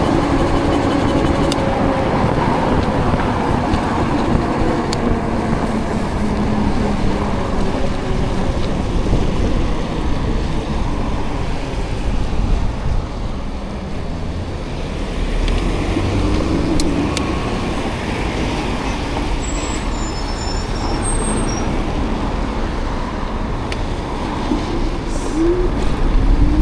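Steady road traffic noise, vehicles passing, heard from a moving e-bike with a low rumble on the microphone.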